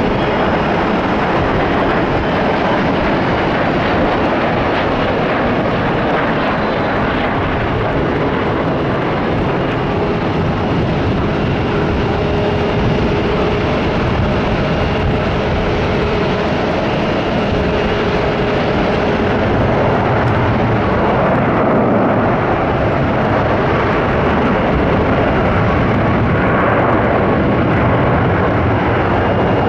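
Boeing 777-200ER twin-engine jet airliner landing: a steady rush and rumble of jet engine and airframe noise that swells slightly and gets deeper about two-thirds of the way through.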